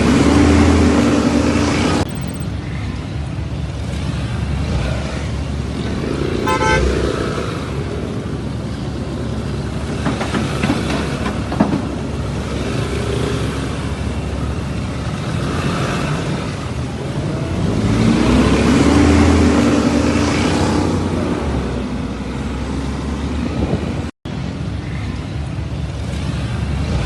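Street traffic noise with car horns sounding: a long horn at the start and another about two-thirds of the way through.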